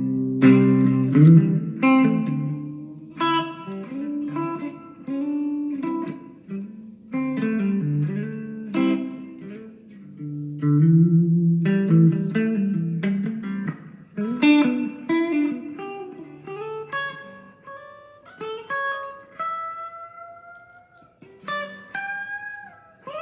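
Guitar playing without singing: plucked notes and chords over low bass notes, with single notes sliding up in pitch from about two-thirds of the way in.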